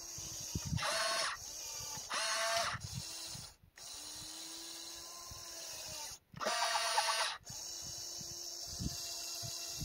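Electric motors of a radio-controlled model excavator whining in several short bursts as the boom and dozer blade move, with a lower steady hum between the bursts.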